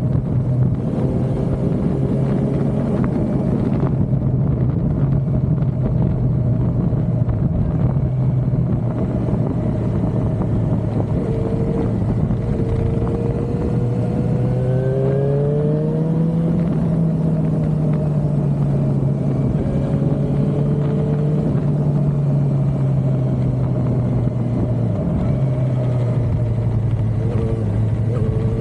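Suzuki motorcycle engine running at a steady road speed, with wind rushing over it. About halfway through the engine note rises as the bike accelerates, then eases down slowly; near the end it dips briefly and picks up again, as at a gear change.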